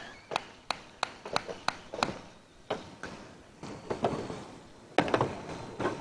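Kitchen work sounds: a run of sharp, evenly spaced taps, about three a second, for the first two seconds, then scattered knocks and a louder clatter of pans about five seconds in.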